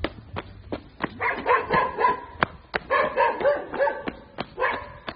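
A dog barking in quick runs of short, high-pitched barks, three bouts in a few seconds, over a regular ticking of footsteps on stony ground, about three a second.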